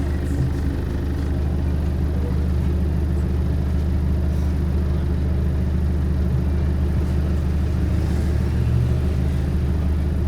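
Inside a moving bus, a loud, steady low drone from the bus's drivetrain. It is the horrible droning sound the recording is about.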